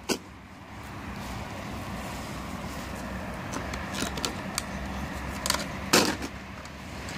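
A few short plastic knocks and clicks as a toy car is handled and put down on the grass, the loudest about six seconds in, over a steady background rumble with a faint hum.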